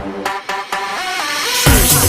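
Electronic dance music: the kick drum and bass drop out for about a second and a half, leaving sustained synth chords, then the four-on-the-floor beat comes back in near the end.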